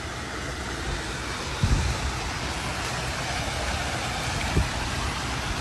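Seawater pouring out from the bottom of a flooded SUV's open door and splashing onto the ground in a steady rush. A couple of low thumps come through, about a second and a half in and again near the end.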